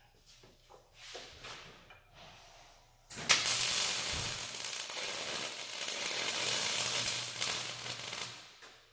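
Electric arc welding: about three seconds in, the arc strikes suddenly and burns steadily for about five seconds before dying away, after a few faint clinks of handling. The weld is running less crisp than it should, which the welders put down to the welder losing voltage.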